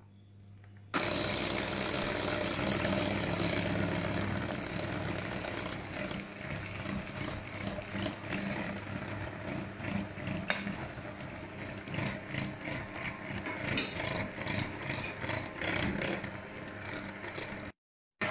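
Bosch electric hand mixer running, its beaters whisking flour and sugar into a wet batter in a ceramic bowl. It switches on about a second in with a steady motor whine, and from about a third of the way in the sound turns choppy as the beaters churn the mix.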